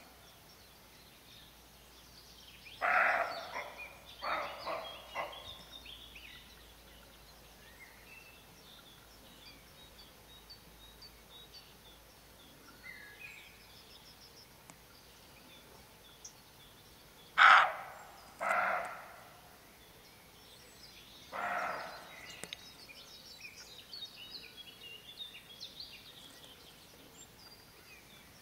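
Roe deer doe giving alarm barks: short, harsh barks in irregular groups, a few in the first five seconds and three more in the second half, the loudest about two-thirds through. Faint birdsong goes on between the barks.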